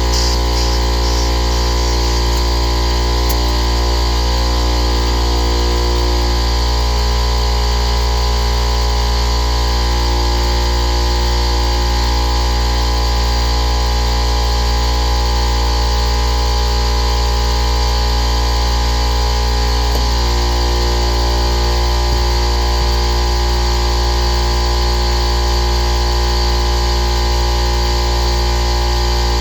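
Ridgid air compressor motor and pump running steadily under power, filling the Craftsman tank it has been transplanted onto.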